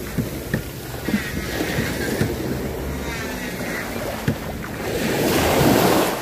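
Sea waves washing onto a beach, with wind buffeting the microphone. A wave surges louder about five seconds in.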